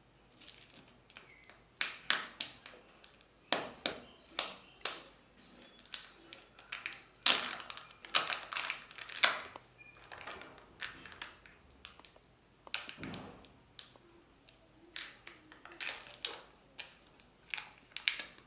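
A Kinder Joy plastic egg being handled and opened: irregular sharp crackles and clicks of the thin plastic shell and its peel-off seal.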